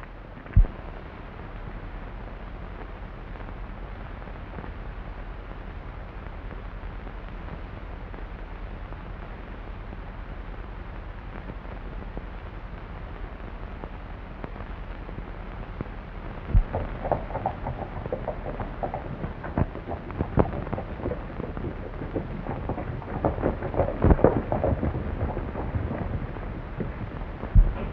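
Steady hiss and hum of an old film soundtrack. From a little past halfway, horses' hoofbeats take over: irregular clopping and thudding as riders come up, with a louder knock near the end.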